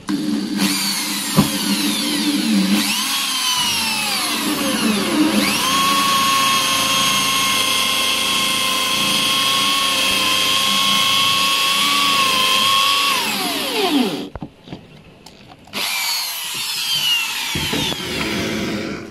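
Corded electric drill boring a hole through the bottom of a plastic tub. Its motor whine dips and rises as it bites, holds steady, then winds down about fourteen seconds in; after a short pause it runs again for a few seconds.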